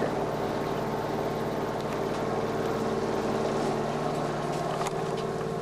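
A steady mechanical hum made of several constant tones, with a faint click about five seconds in.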